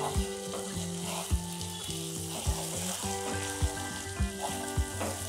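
Chicken pieces, onions and ground spices sizzling in oil in a nonstick pan as they are stirred and turned with a spatula, the masala being fried (bhuna). The spatula knocks softly against the pan about once a second.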